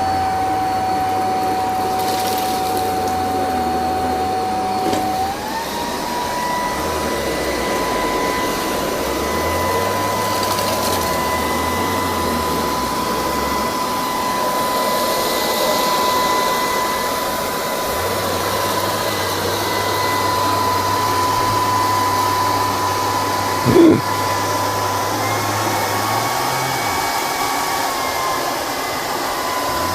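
LG R9 robot vacuum running, its motor whining steadily. The pitch steps up a little about five seconds in and briefly shifts again later. A single brief knock comes about three-quarters of the way through.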